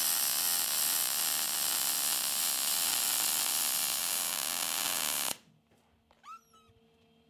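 MIG welder arc running steadily on steel chassis metal for about five seconds, then cutting off suddenly as the arc stops. A brief faint chirp follows about a second later.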